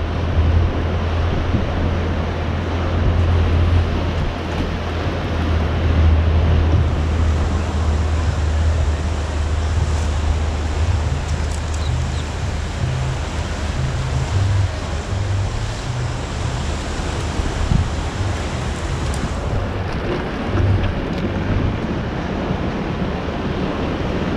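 Steady wind rumbling on the microphone over the wash of the sea, the rumble heaviest in the first half.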